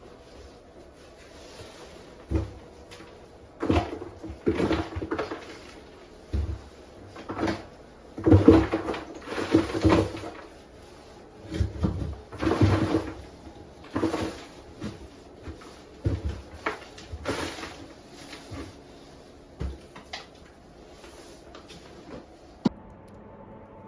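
Handling and knocking sounds: a dozen or so short knocks, rubs and rustles over about twenty seconds, quieter near the end.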